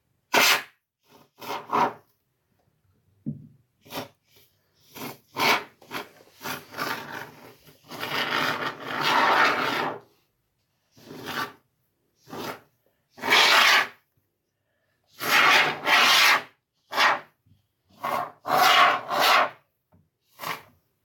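Can of expanding foam being sprayed in a series of short hissing, sputtering bursts, the longest about two seconds, with the foam spitting out unevenly.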